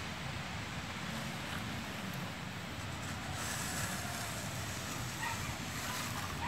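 Steady wind rumble on the microphone.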